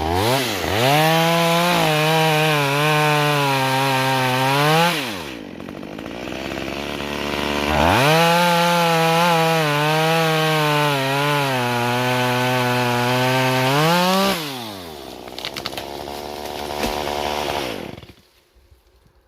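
Chainsaw running at full throttle for two long stretches, sagging slightly under load as it cuts into pine, and dropping back to idle between them. Near the end it idles and then stops.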